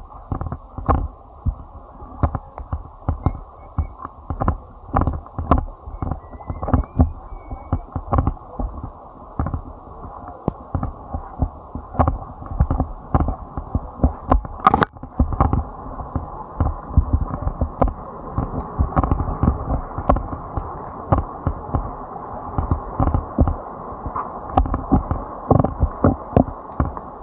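Muffled, irregular thumps and knocks running on without pause, dull and without any high end.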